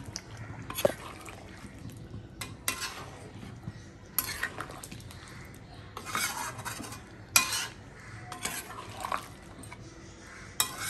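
A spoon stirring a pot of thick mutton curry, scraping and clinking against the pot about half a dozen times.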